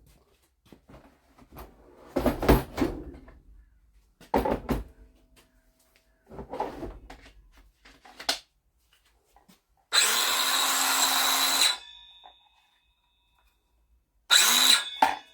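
Clicks and knocks from handling a Parkside cordless edge trimmer, then its motor runs for about two seconds with a high whine and stops. A second, shorter burst comes near the end.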